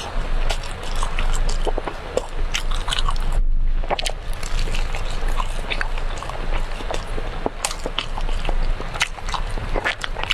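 Close-miked mouth sounds of someone eating brown sugar cake: biting and chewing, with many small irregular clicks and a brief break about three and a half seconds in.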